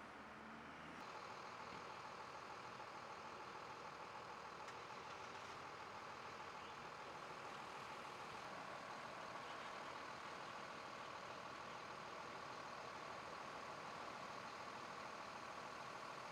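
Steady, faint idling of a vehicle engine, a constant hum that sets in about a second in.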